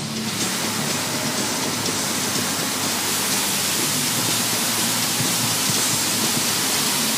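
Car wash water jets spraying onto the car's windshield and body, heard from inside the cabin: a loud, steady, dense hiss that comes on suddenly.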